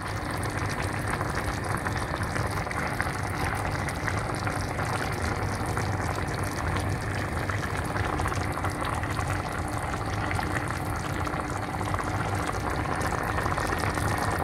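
Tomato-based chicken curry simmering in a frying pan: a steady crackle of many small bubbles popping.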